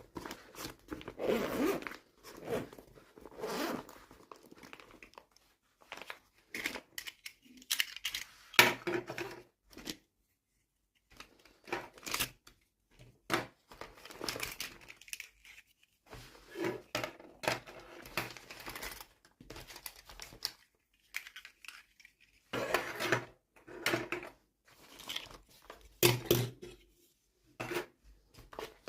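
Toy packaging being torn open and crinkled by hand: irregular rips and rustles with sharp clicks, coming in bursts with short pauses.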